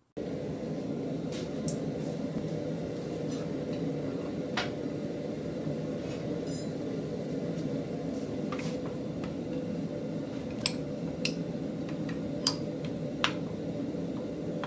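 Light metallic clinks of tongs and tools against a steel post vise as a red-hot forging is set and clamped in it, with four sharper clinks in the last few seconds. A steady low drone runs underneath.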